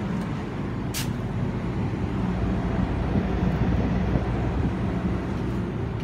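Saijo Denki air conditioner condenser unit running with a steady hum and the rush of its plastic-bladed fan; a brief click about a second in.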